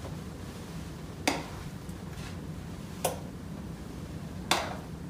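A metal spoon clinking against glass bowls three times, about one and a half seconds apart, as chocolate pudding is scooped and spooned into a glass trifle bowl, over a faint steady hum.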